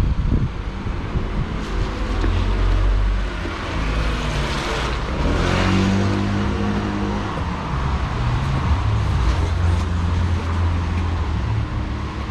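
Road traffic: a motor vehicle passes close by, its noise swelling to a peak about five seconds in and its engine note falling as it goes, over a steady engine hum.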